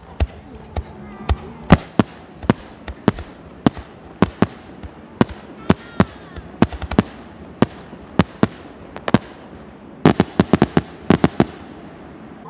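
Aerial firework shells bursting overhead: a string of sharp bangs at irregular intervals, about two a second. A rapid cluster of bangs comes a little after ten seconds in.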